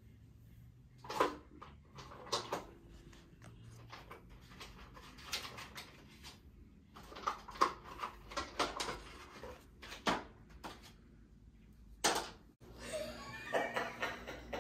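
Faint, irregular knocks, bumps and rustles in a small room, with no steady sound between them.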